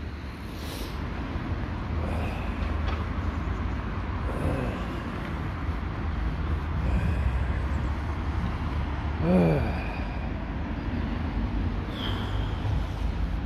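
Road traffic around a roundabout, a steady low rumble of passing cars. A brief falling sound rises above it about nine seconds in.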